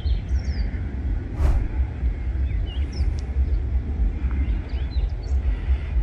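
Wind buffeting the microphone in an uneven low rumble, with small birds chirping and twittering faintly in the background.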